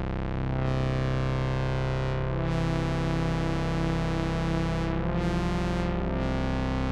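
Roland Juno-106 analog polyphonic synthesizer playing sustained chords on a preset patch. The held notes change every second or two, and one note wavers slowly in the middle.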